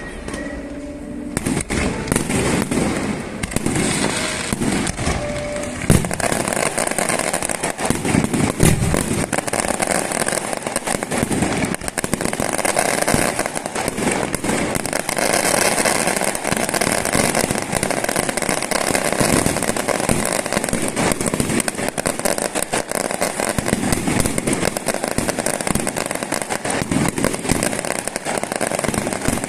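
Fireworks crackling, a dense run of rapid small pops and bangs that goes on without a break.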